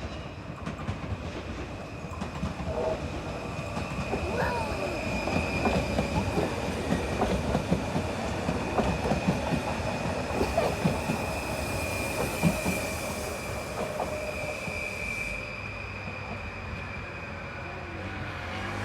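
A train running through the station: wheels clacking over rail joints, growing louder to a peak about two-thirds of the way in and then fading, with a steady high-pitched tone throughout.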